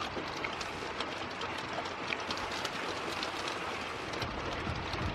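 Steady light rain falling after a thunderstorm, with scattered drops ticking.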